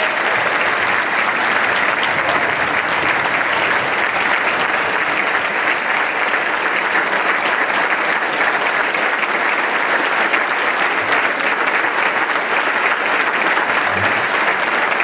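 Large audience applauding: dense, steady clapping that holds at full strength throughout.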